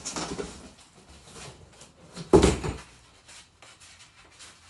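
Cardboard box being opened and handled: rustling and rubbing of cardboard, with one louder thump about halfway through.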